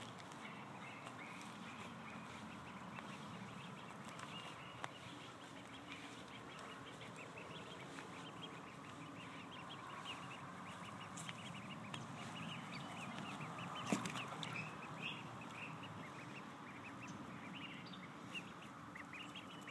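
Ducklings peeping: many rapid, high, short chirps, the loud contact calls that help a lost duckling and its group find each other. One sharp knock about fourteen seconds in.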